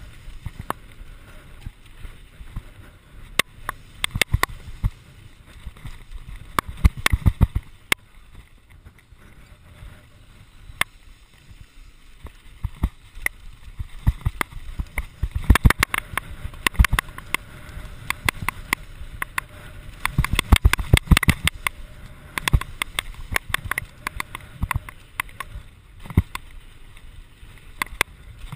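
Santa Cruz Nomad mk2 full-suspension mountain bike descending a dry dirt trail: tyres running over dirt and gravel under a steady low rumble, with many sharp rattles and knocks from the bike over bumps. The rattling comes in clusters on rougher stretches, heaviest about a third and two-thirds of the way through.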